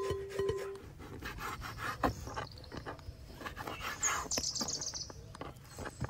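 Ripe tomato rasped against a metal box grater in short scraping strokes, with a bird chirping briefly about four seconds in.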